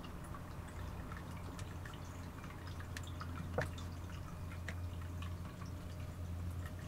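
Steady low hum with faint, scattered small clicks and taps, and one sharper tap about three and a half seconds in.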